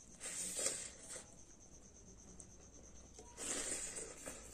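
Close-miked eating sounds of rice and curry eaten by hand: chewing and wet mouth noises in two bursts of about a second each, one just after the start and one past three seconds in.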